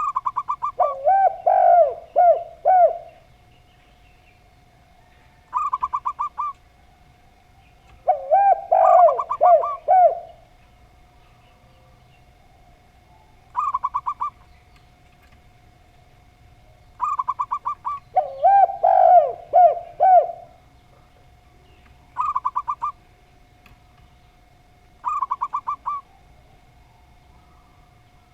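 Zebra dove and spotted dove cooing in turn. Longer, lower, bending coo phrases come three times, and between them come five short, rapid runs of higher staccato coo notes. A faint steady whine sits underneath.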